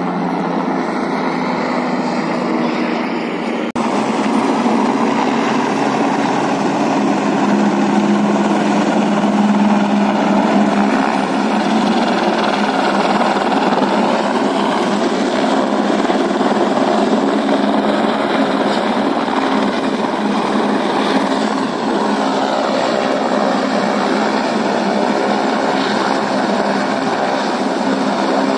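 Helicopter engine and rotors running steadily.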